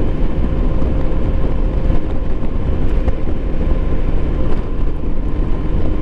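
Motorcycle riding at highway speed: a steady rush of wind, engine and road noise, heaviest in the low end, with a faint steady whine over it.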